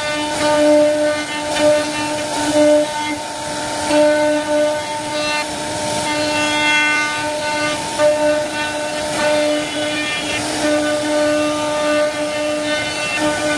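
CNC wood carving router's spindle whining at a steady pitch as the bit cuts wood, with short rasps of cutting noise every second or so.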